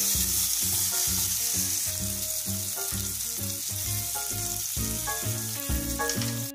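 Salmon steaks sizzling in hot oil in a nonstick frying pan, a steady frying hiss that cuts off suddenly near the end, with background music playing underneath.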